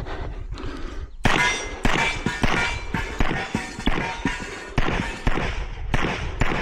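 Handgun shots fired in quick succession during a practical shooting course of fire, about half a second apart, starting about a second in with a short pause midway.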